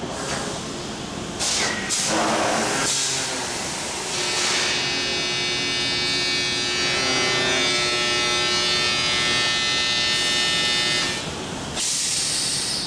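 A DISA foundry moulding machine running through its cycle, its crank linkage swinging. A burst of rushing noise comes about two seconds in, then a steady high whine made of many tones lasts several seconds, and another burst of rushing noise comes near the end.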